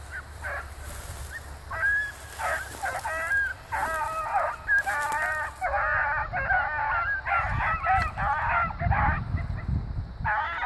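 Several young hounds baying together, their drawn-out calls overlapping and coming thicker and louder from about two seconds in, as a pack in full cry does.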